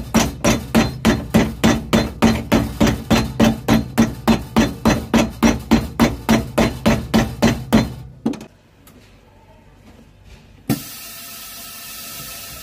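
Cobbler's hammer beating a new leather sole down onto a shoe held on an iron last, a quick even run of about three and a half blows a second that stops about eight seconds in. Near the end a steady hiss starts suddenly as the shoe goes into the sole press.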